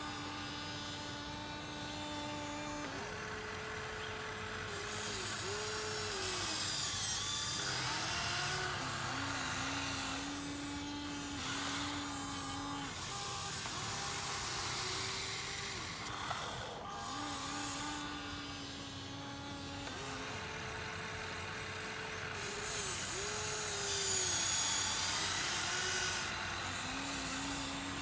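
Huina 1593 RC excavator's electric motors whining, the pitch stepping up and down each time a different arm, bucket or swing motion starts and stops, with bursts of hissing scrape as the bucket works through sand.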